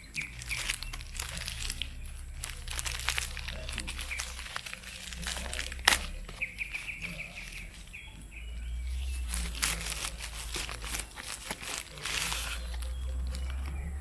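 A plastic courier mailer crinkling and rustling as it is handled, torn open and a small box pulled out of it, with a sharp click about six seconds in. A bird trills briefly in the background just after the click.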